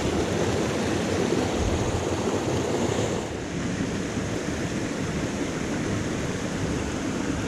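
Rushing water of a small rocky moorland stream tumbling over stones and little cascades, a steady noise that eases slightly about three seconds in.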